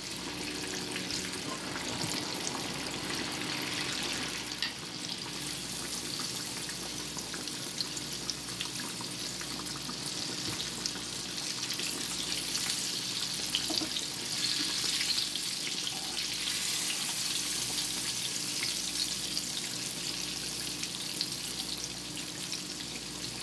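Tofu slices deep-frying in hot peanut and vegetable oil in a cast-iron skillet: a steady sizzle with fine crackling from the bubbling oil.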